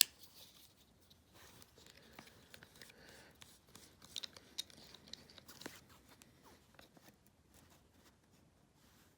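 Faint handling noises from a side-folding AK rifle stock being worked by hand: a sharp click at the start, then scattered small clicks and rustles a few seconds in.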